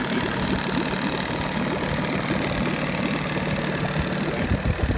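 A 1987 Johnson 9.9 hp two-cylinder two-stroke outboard running steadily at idle in a test barrel. It is idling smoothly on freshly replaced crank seals.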